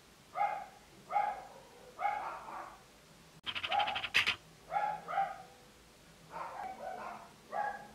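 Dogs barking repeatedly, in separate short barks about every half second to second, with a quicker run of higher yaps about halfway through.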